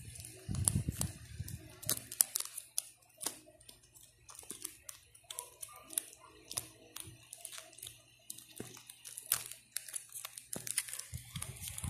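Clear plastic coin-album pockets crinkling and crackling as fingers press and slide coins inside them, a run of irregular sharp clicks. Dull handling bumps in the first couple of seconds.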